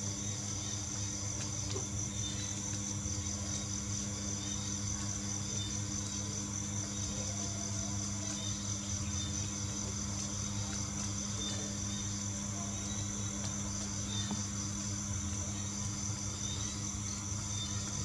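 Steady low hum with a continuous high-pitched, pulsing whine above it.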